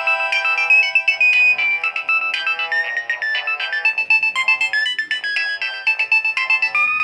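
Nokia 1209 mobile phone ringtone: a fast electronic melody of short notes, several at once, playing without a break.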